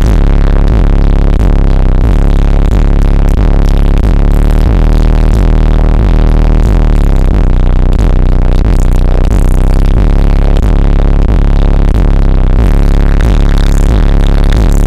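Bass-heavy electronic music played very loud through a car audio system with Skar Audio subwoofers, the deep bass notes stepping up and down in pitch.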